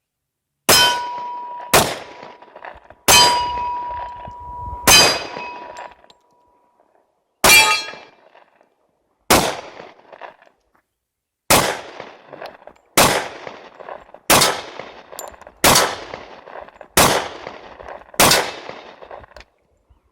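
Twelve pistol shots from a Springfield XDS subcompact in .45 ACP, fired one at a time about a second or two apart, with a longer pause after the fourth shot. The first few shots are each followed by a steady ringing note.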